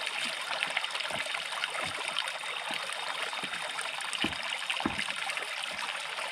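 Shallow river water flowing and trickling steadily, with a few soft low thumps.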